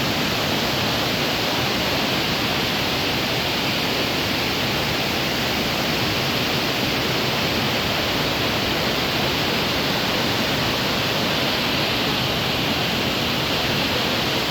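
Waterfall's falling water: a steady, unbroken rush.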